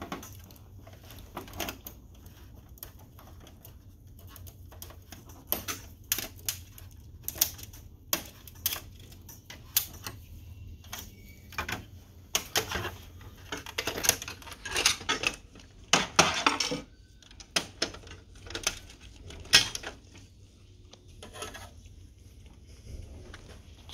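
A screwdriver and gloved hands clicking and clattering against the metal and plastic frame of an opened HP Color LaserJet printer during disassembly. Irregular taps and knocks come in busier clusters in the middle.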